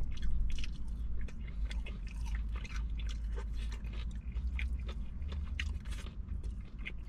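Close-miked chewing and biting into sauced fried chicken: wet, crunchy mouth sounds with many quick crackles, over a steady low hum.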